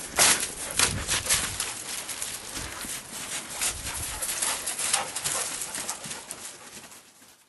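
Footsteps crunching over snow and straw, in an irregular run of crackles that grows fainter and fades out near the end.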